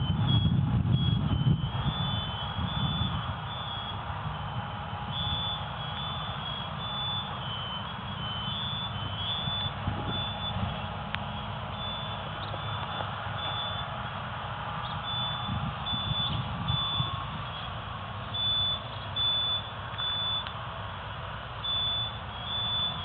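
Steady low rumble of a vehicle, heavier in the first few seconds, with repeated short high-pitched beeps coming and going throughout.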